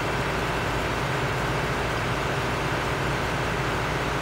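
Steady low hum under an even hiss, a constant drone with no distinct events.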